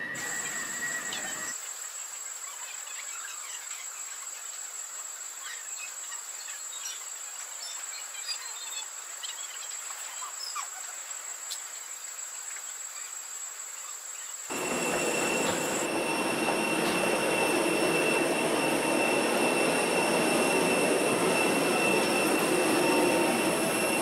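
Quiet departure-hall room tone with faint scattered ticks. About fourteen seconds in it gives way to the louder steady rush of a parked airliner cabin's air supply during boarding, with a steady high whine over it.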